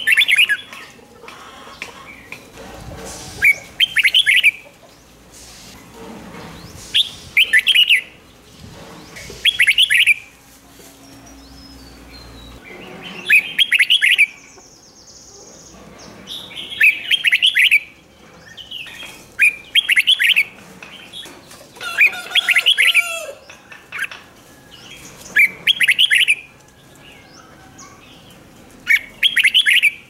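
Red-whiskered bulbul singing short, loud, warbled phrases every few seconds, often two in quick succession, over a steady background hiss.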